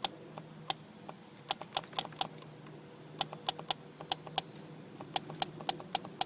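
VW Thing gas heater's fuel pump running on 12 volts, ticking in sharp clicks about three to four a second with short gaps. Each click is a pump stroke, and the steady ticking shows the pump is working. A faint steady hum sits underneath.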